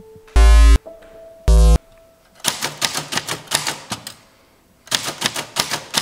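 Two short, very loud buzzing tones, then rapid keystrokes clattering on an old manual typewriter in two quick runs with a brief pause between. A faint held note sounds under the buzzes.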